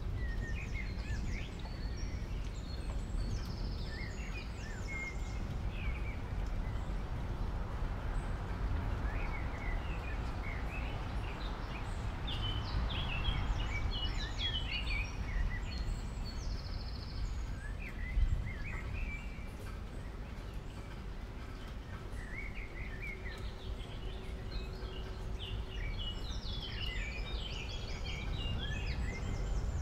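Small birds chirping and trilling in scattered bursts over a steady low rumble of background noise, with a single dull thump about two-thirds of the way through.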